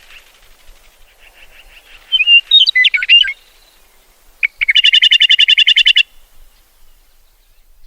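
Lark singing: a faint fast trill, then a loud phrase of sliding whistled notes about two seconds in, and a loud rapid trill lasting over a second from about four and a half seconds in.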